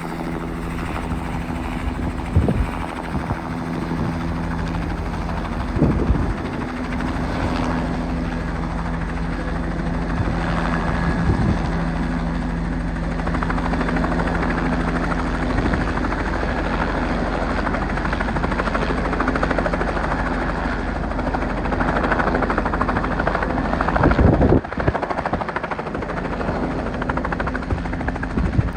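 Offshore transport helicopter's rotor and turbine engine running steadily as it comes in to land on a ship's helipad, with a steady droning tone. Gusts of gale-force wind hit the microphone now and then.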